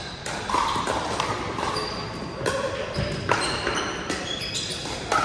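Pickleball paddles striking the hard plastic ball in a rally: irregular sharp pops, with short high squeaks of sneakers on the gym floor and faint voices in the background.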